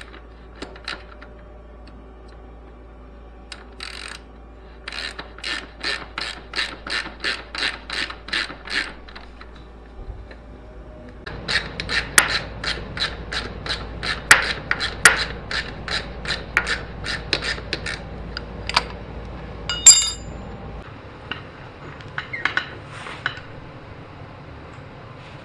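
Ratchet wrench clicking in quick runs as bolts at the motorcycle's rear suspension are worked, the second run louder. A single ringing metallic clink comes near the end.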